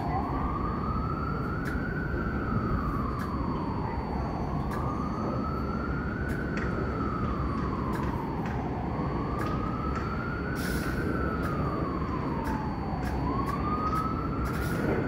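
An emergency vehicle siren in a slow wail, rising and falling about every four and a half seconds, over a steady low rumble.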